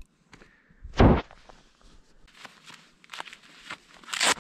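Handling noise from an action camera being mounted on a helmet: a heavy thump about a second in, scattered rubbing and clicking, then another loud knock near the end.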